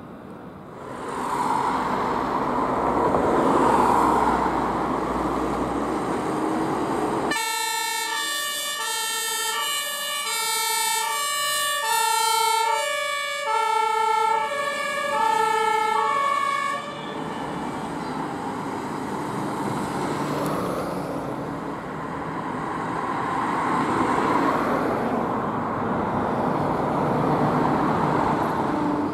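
German two-tone emergency vehicle siren (Martinshorn) sounding in the middle for about ten seconds, switching back and forth between a low and a high note. Before and after it come the engine and road noise of passing traffic.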